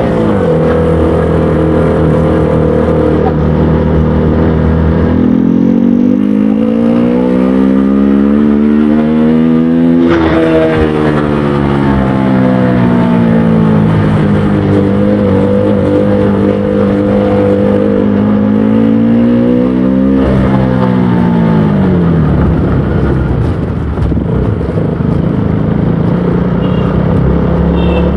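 KTM Duke 200 motorcycle's single-cylinder engine and exhaust, running steadily, then revved slowly up to a peak about ten seconds in and let back down, held, given a shorter rev just before twenty seconds and dropped back to a steady lower note.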